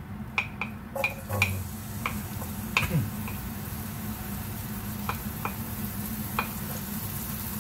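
Chopped red onion sizzling in hot oil in a frying pan, with scattered sharp clicks of a wooden spatula scraping onion off a plate and tapping the pan.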